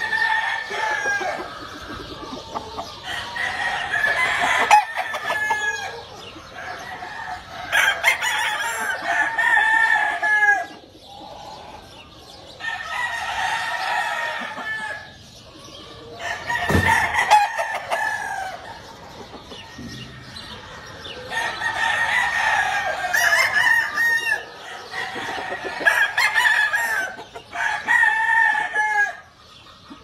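Several gamefowl roosters crowing over and over, their crows often overlapping, with some clucking between them. A single sharp thump comes about halfway through.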